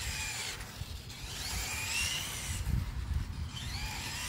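Tamiya M02L radio-controlled car's electric motor and gears whining as it drives, the pitch rising a couple of times as it speeds up.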